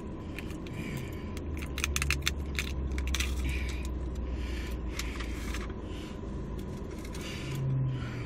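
Food packaging being handled: rustling and crinkling with many sharp clicks of plastic and paper, as a marinara sauce cup and takeout containers are handled. A low steady rumble runs underneath through the middle.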